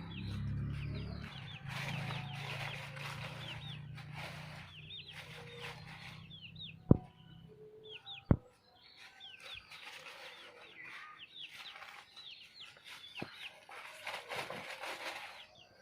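Chickens foraging, hens clucking among many short high chirps. A low hum fades out about halfway through, and two sharp clicks come about seven and eight seconds in.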